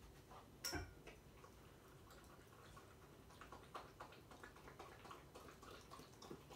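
Near silence with a puppy rummaging through toys on a blanket: faint scattered ticks and rustles, with one sharper knock a little under a second in.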